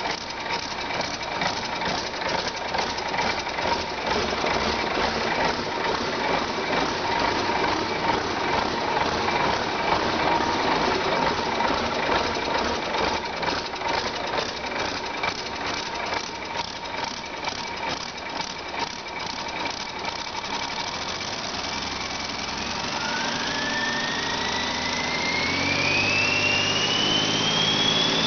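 2002 Cummins ISB 5.9-litre turbocharged inline-six diesel running with a steady diesel clatter. Around 22 seconds in it speeds up and grows louder, with a turbocharger whine climbing steadily in pitch.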